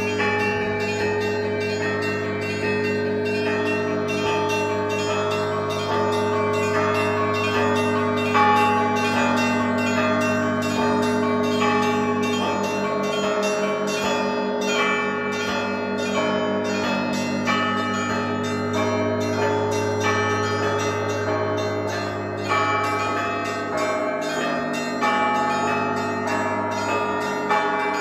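Orthodox monastery church bells rung together in a continuous fast peal. Small bells are struck in rapid rhythmic strokes over the steady hum of the large bells.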